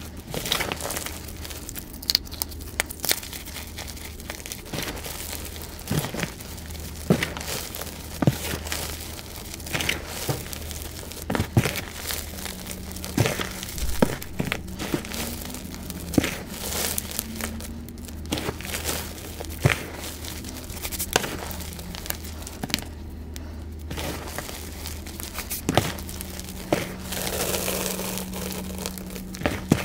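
Hands squeezing and crumbling powdered gym chalk: a run of soft crunches and sharp crackles as the chalk breaks and compresses, over a steady low hum.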